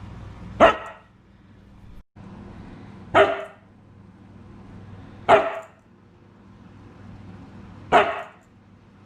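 A dog barking: four single, sharp barks spaced about two to three seconds apart.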